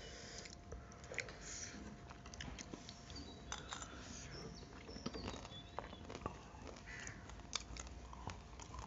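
Faint eating sounds: scattered crunches of chewing and short clicks of a spoon and fork on a plate.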